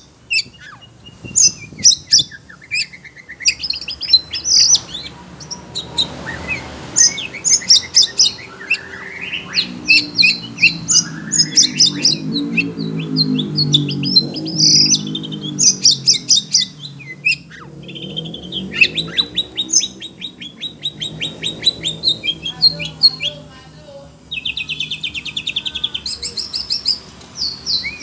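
Oriental magpie-robin singing a rapid, varied stream of whistles, chirps, sweeping notes and fast rattling trills, agitated by the calls of other birds. A lower pitched sound runs underneath for several seconds in the middle.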